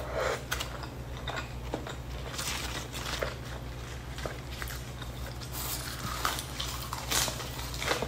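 Close-miked chewing of chicken and raw lettuce and basil leaves, with short crunches and clicks scattered throughout, over a steady low hum.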